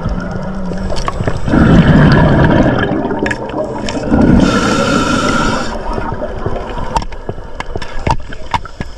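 A scuba diver breathing out through the regulator underwater: two long gurgling rushes of exhaled bubbles, with sharp clicks scattered between them.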